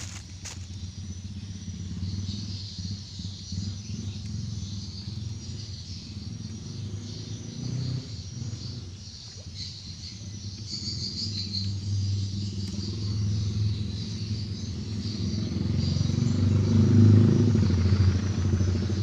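Insects trilling high and steadily over a low droning hum. The hum grows louder toward the end and then eases off.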